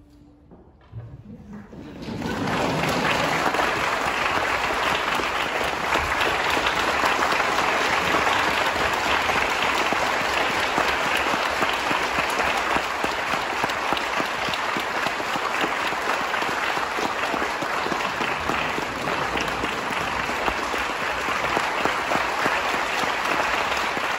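Concert hall audience applauding. The applause swells in after a hush of about two seconds, then goes on as steady, dense clapping.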